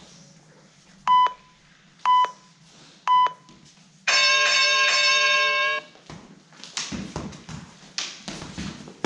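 Countdown timer signalling the start of a fencing bout: three short beeps a second apart, then a longer, harsher beep lasting almost two seconds. After it comes an irregular clatter of sharp knocks and clicks as the sword-and-dagger fencers engage.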